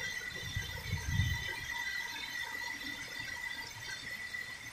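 Steady rain hiss with a constant high, thin tone running through it and a brief low rumble about a second in.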